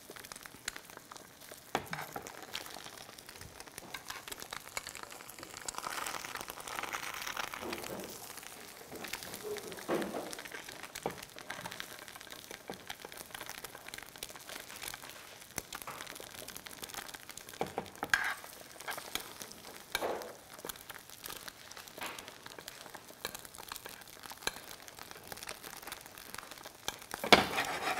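Plant-based butter foaming and sizzling in a hot wrought-iron pan as a block of tofu is basted with a spoon. The spoon gives a few light clicks against the pan now and then.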